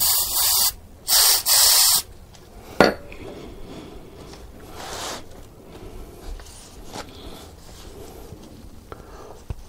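Aerosol carburetor cleaner hissing out in three short sprays onto a metal brake caliper bracket, followed by a single click and then a rag rubbing over the bracket to wipe it down.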